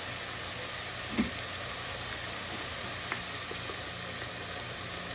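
Ground turkey frying in olive oil in a pot, a steady sizzle, with a light click about a second in and another about three seconds in.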